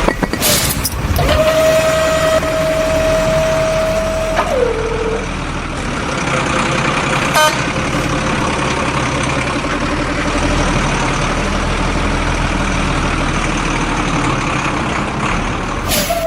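A truck engine running steadily, with a single horn-like tone sounding about a second in for roughly three seconds and sliding down in pitch as it stops.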